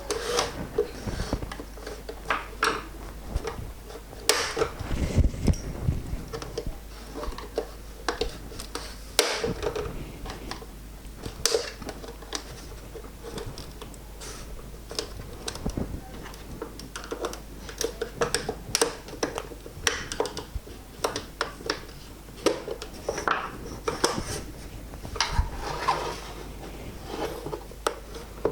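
Irregular plastic clicks, taps and rubbing from handling and prising apart the plastic housing and clips of a BMW instrument cluster.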